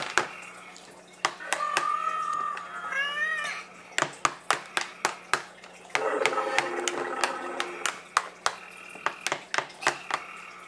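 Battery-powered Dino Meal dinosaur toy ticking steadily, about three sharp clicks a second, while it waits to lunge at whoever steals its eggs. A child's high vocal sounds come in short stretches over the ticking.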